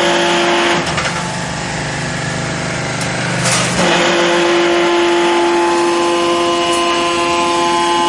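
Hydraulic crimped wire mesh machine running with a steady machine hum. About a second in the sound drops and changes for roughly three seconds, then a clunk comes and the steady hum returns.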